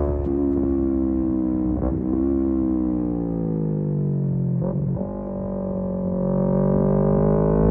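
Kawasaki Z250 parallel-twin engine through a SeaPro aftermarket muffler, heard from the rider's seat. Its revs fall as the bike slows, with brief gear changes about two seconds in and again near five seconds, and then the revs climb steadily as it pulls away.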